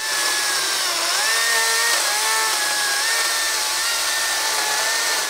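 Makita DUC353 36 V brushless cordless chainsaw cutting through a 250 mm log: a steady high motor whine with the chain rasping through the wood. The pitch dips about a second in and then recovers, the motor labouring in the thick log.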